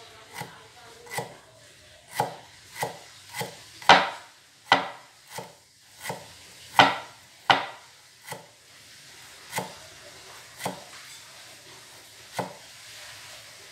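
Knife chopping on a wooden chopping board: about fifteen separate sharp chops at an uneven pace, half a second to nearly two seconds apart, loudest in the middle and slowing toward the end.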